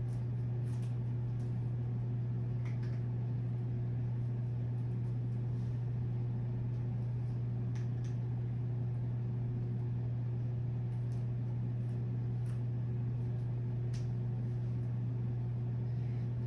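Steady low hum, with a few faint scattered clicks.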